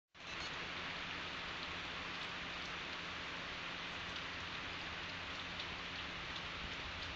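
Steady rain falling, a continuous even hiss with faint scattered drop ticks.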